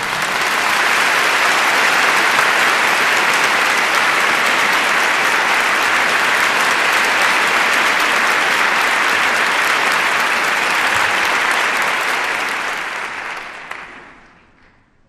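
Theatre audience applauding steadily, with dense clapping that dies away over the last couple of seconds.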